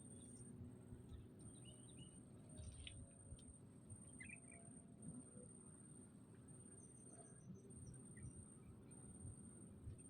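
Faint outdoor ambience: a few scattered bird chirps, including a quick run of high chirps about seven seconds in, over a steady thin high-pitched insect drone and low rumble.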